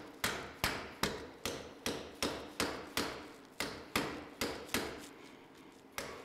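Rubber mallet blows driving the inboard CV joint's ball bearing assembly onto an ATV drive axle to seat it fully: a steady run of short knocks, about two and a half a second. The blows pause for about a second near the end, then one more lands.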